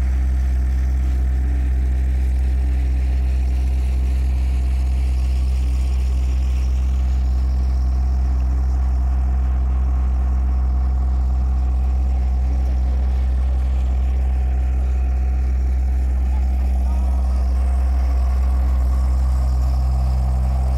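An engine idling: a loud, steady low hum that never changes pitch.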